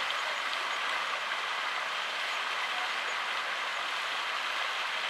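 Flowing water rushing steadily, an even hiss with no breaks.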